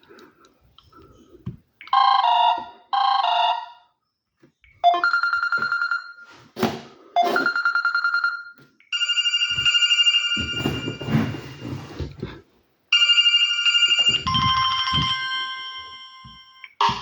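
Samsung Galaxy Mini 2 phone speaker playing a string of different electronic ringtones and alert tones, each cut off after one to three seconds before the next begins. Two short beeping bursts come first. A few knocks and a low rustle fall between the tones.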